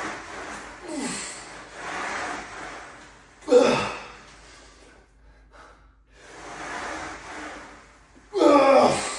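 A weightlifter breathing hard through the reps of an incline Smith machine press, with sharp breaths about once a second. Two loud strained grunts fall in pitch as he drives the bar up, one about three and a half seconds in and a longer one near the end.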